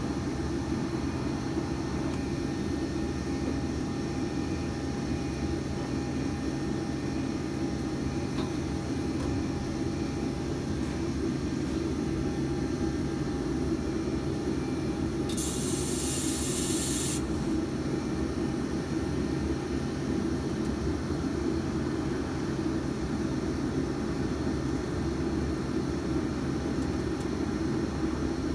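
Steady, low mechanical drone with a constant hum. About halfway through there is a single high hiss lasting under two seconds.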